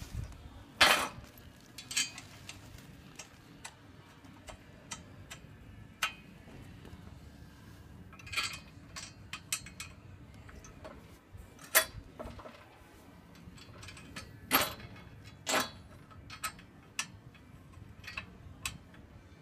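Small metal clinks and clicks of bolts and nuts being fitted by hand into a steel drift trike frame, with a few louder clanks of metal on metal, the loudest about a second in and near the middle.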